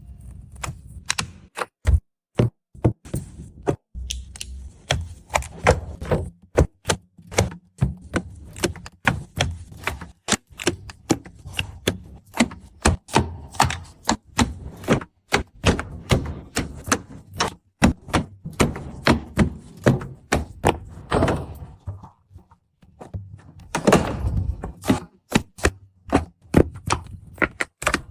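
A rapid, irregular run of sharp knocks and clicks, several a second, with a few short pauses.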